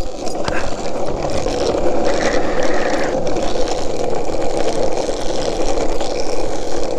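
Longboard wheels rolling fast downhill on rough asphalt: a steady, loud rolling rumble.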